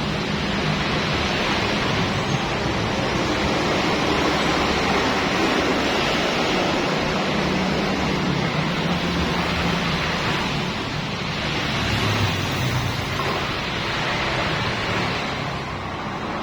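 Water-washing machine running, its motor humming low under a steady rush of spraying water.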